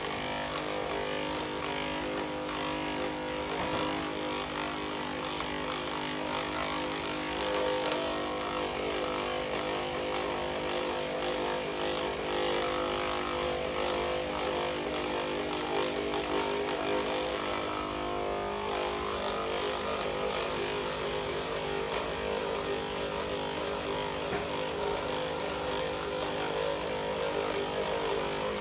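Handheld electric percussion massager (massage gun) with a deeper attachment head, running steadily as it is worked over the lower back. Its motor hum shifts a little about two-thirds of the way through.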